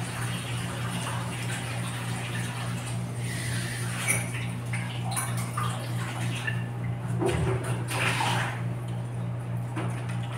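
Eating sounds from a meal of instant noodles: chewing and slurping, with chopsticks clicking and scraping on plates, in irregular spurts. A steady low hum sits underneath.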